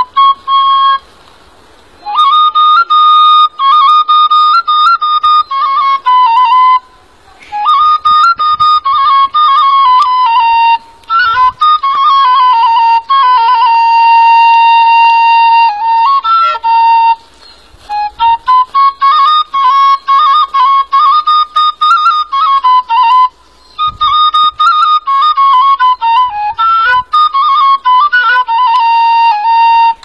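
Solo melody on a flute-like wind instrument, ornamented with quick trills and played in phrases of a few seconds broken by short pauses.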